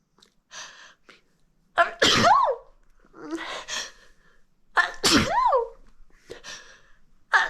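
A person sneezing twice in quick succession, each sneeze led in by a short noisy in-breath, with a third sneeze starting right at the end. Each sneeze opens sharply and finishes in a voiced cry that rises then falls in pitch.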